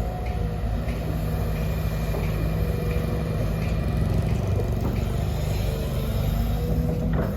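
Sumitomo SH210 hydraulic excavator's diesel engine running steadily, with a low, even hum and a few light knocks.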